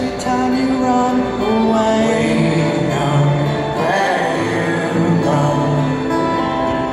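Live band music, a slow song with acoustic guitar and long held melodic notes, with a faint sung or chant-like line.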